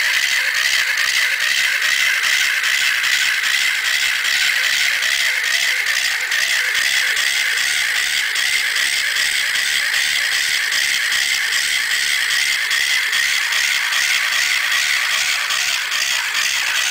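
Small battery-powered electric motor and its plastic gear train running steadily in a homemade model crawler tractor: a constant high whine with fast, regular clicking from the gears and tracks.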